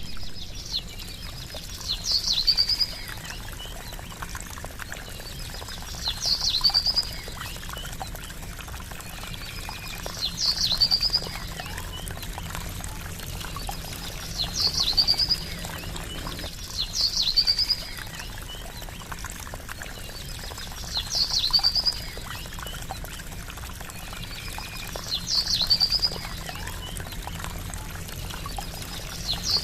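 Trickling water runs steadily while a bird's short, high chirping call repeats about every four seconds, louder than the water.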